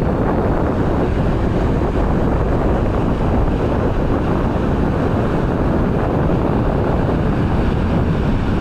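Wind buffeting the microphone: a loud, steady rumble throughout.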